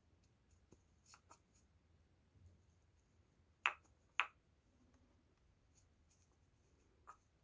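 Two short, sharp clicks about half a second apart, with a few fainter ticks before and after, over near silence.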